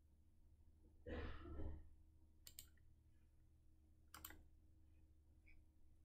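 Computer mouse clicking: a quick double click about two and a half seconds in and another about four seconds in. Just after one second there is a breath out, the loudest sound here, over a faint steady low hum.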